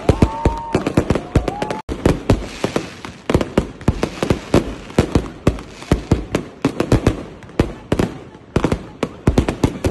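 Fireworks going off in a rapid, continuous barrage of sharp bangs and crackles, several a second, with a couple of whistling tones in the first two seconds.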